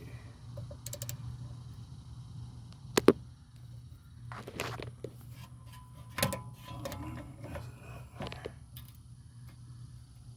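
Hand tools knocking and clanking against a car's rear brake caliper, a few sharp metallic hits, the loudest about three seconds in, with a brief ring after one of them, over a steady low hum.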